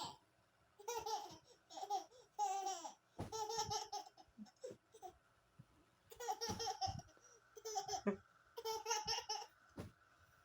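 A person laughing in about seven high-pitched bursts, with short pauses between them.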